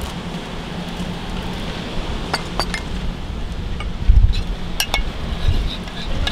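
A few light clinks of utensils and ceramic bowls, with a pair about two seconds in and another pair near five seconds, over steady wind on the microphone that gusts into a low rumble just after four seconds.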